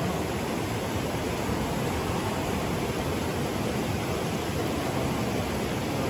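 River water rushing over rocks: a steady, even rush with no breaks.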